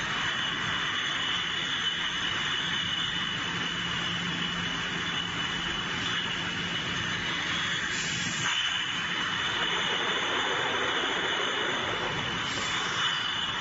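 Bottling-line machinery running: an automatic depalletizer and its bottle conveyor make a steady noisy drone with a high whine. A low hum drops out about eight seconds in, and there are two short hisses, one about eight seconds in and one near the end.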